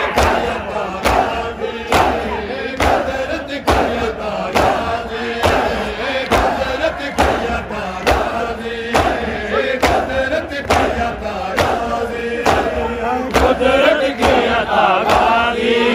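A crowd of men chanting a Shia nauha refrain in unison, with loud, evenly spaced strokes of matam (hands beating on chests) a little more than once a second.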